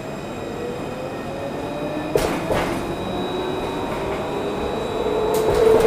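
Luas light-rail tram running, heard from inside the passenger car: a steady rumble of the ride with the electric drive's whine climbing slowly in pitch and getting louder as the tram gathers speed. A sharp clunk comes about two seconds in.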